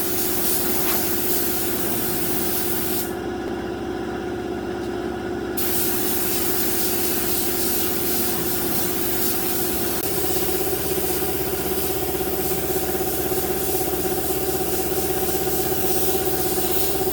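An electric power tool running steadily, a held motor tone over a dense hiss, typical of sanding or grinding wood. The tone shifts slightly about ten seconds in.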